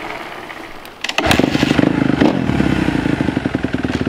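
Kawasaki dirt bike engine starting about a second in, then running with a rapid, even beat.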